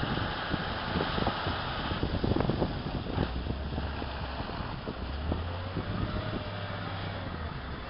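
Heavy diesel engines of a tipper truck and a Volvo wheel loader running, with wind buffeting the microphone. A steady low engine hum comes through most clearly in the second half.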